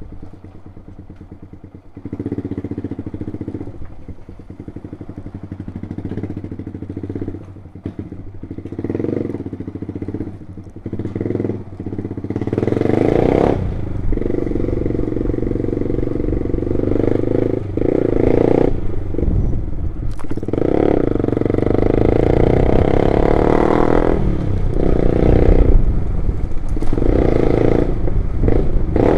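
A loud motorcycle engine running as the bike is ridden, its note rising and falling with the throttle. It gets noticeably louder about a dozen seconds in, with a few brief drops as the throttle is rolled off.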